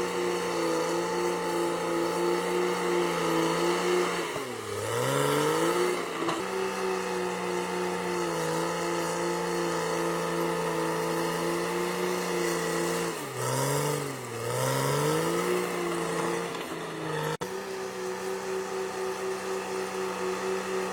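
Caterpillar D6R XL bulldozer's diesel engine running at a steady high speed, with the engine note twice sagging and climbing back up. An abrupt break about seventeen seconds in.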